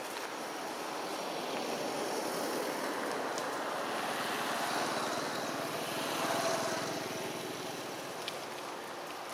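A vehicle passing by: a steady rushing engine-and-tyre noise that grows louder toward the middle and fades toward the end.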